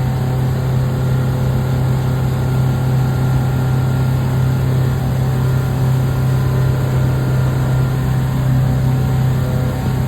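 Mercury MerCruiser 5.7-litre V8 boat engine running at a steady speed, an even humming drone that holds constant throughout, the engine freshly tuned up and running smoothly.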